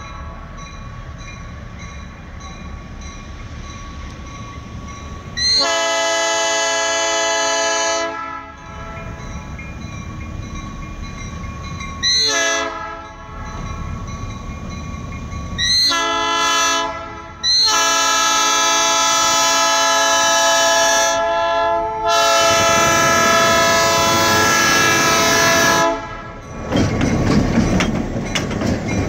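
Diesel locomotive air horn sounding the grade-crossing signal as the train approaches the crossing: a long blast, a short one, then long blasts held almost to the crossing, each a chord of several tones. Between the blasts the diesel engines rumble. Near the end the green locomotives pass close, and their engines and wheels clatter over the rail joints.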